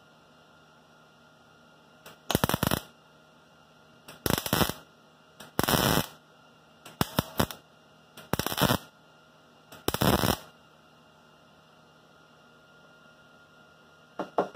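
Wire-feed welder laying tack welds on a car quarter-panel seam: six short bursts of arc noise, about one every second and a half, then a brief one near the end, over a faint steady hum.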